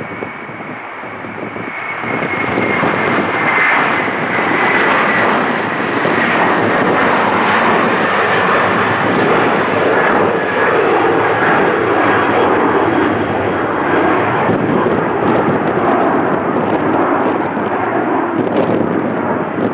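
Jet engines of an Airbus A330 at takeoff thrust as it climbs away just after liftoff: a loud steady rumble with a thin high whine that slowly falls in pitch, growing louder about two seconds in.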